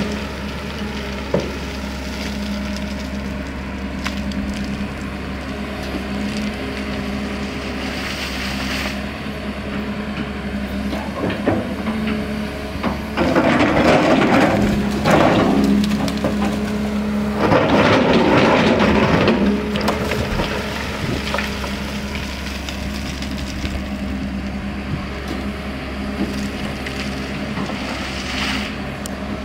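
Hyundai R245LR Smart Plus long-reach excavator's diesel engine running steadily while the bucket digs into rocky soil at the bottom of a well pit, with two louder spells of earth and stone being scraped and crushed about halfway through.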